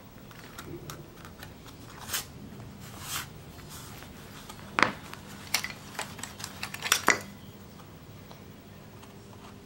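Hand gouge cutting into a plywood woodcut block, two short scraping strokes in the first few seconds, then a run of sharp clicks and taps, the loudest about five and seven seconds in.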